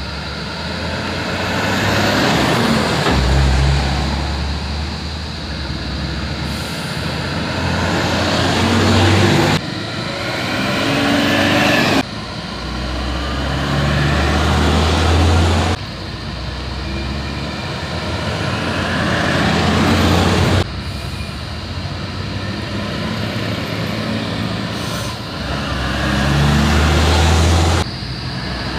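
Diesel engines of IVECO Euromidi coach buses driving past one after another. The sound comes as a run of short clips that cut off abruptly, about six of them. Within each clip the engine sound grows louder as the bus comes close.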